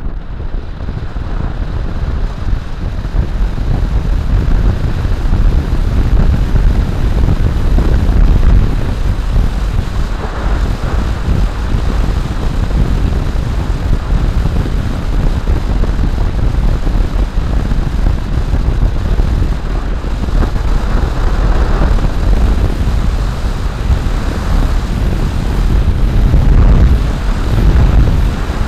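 Wind rushing and buffeting hard over the microphone of an electric motorcycle riding at road speed, growing louder over the first few seconds.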